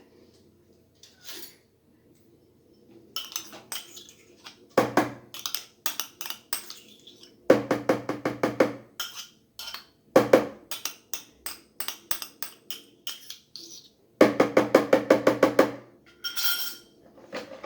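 A kitchen utensil beating cake batter against the sides of a mixing bowl as the yogurt is mixed in: bursts of quick clicking strikes, about eight a second, with short pauses between bursts.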